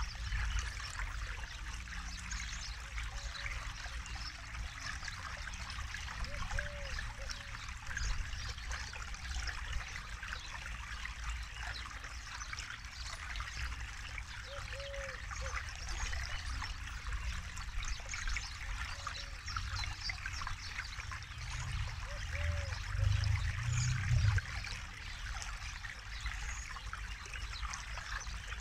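Forest river flowing over stones, a steady burbling, trickling rush of water. A few faint short notes recur every several seconds, and a low rumble swells briefly about 22 seconds in.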